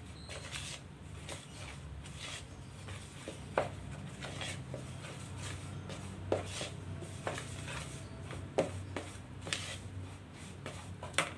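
Silicone spatula stirring dry rice and sago flour with an egg in a plastic bowl: a soft, continuous scraping and rubbing, with a few sharp knocks spread through it.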